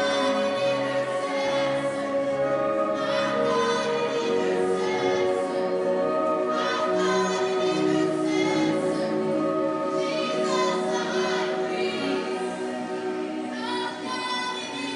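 Live worship music: sustained keyboard chords with voices singing over them in phrases.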